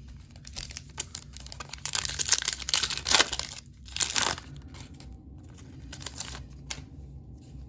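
Foil wrapper of a trading-card pack crinkling as it is handled and torn open, with a short, louder rip about four seconds in, then fainter handling noise.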